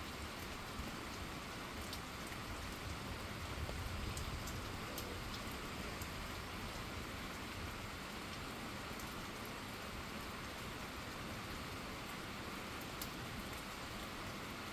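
Steady rain falling on a wet asphalt road and grass, a constant hiss with scattered individual drops ticking close by.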